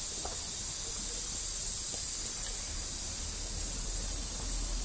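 Steady high hiss over a low rumble of background noise, with a few faint ticks.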